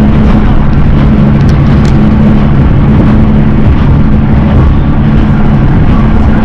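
Nagara 600-series diesel railcar under way: a loud, steady diesel engine drone with the train's running noise.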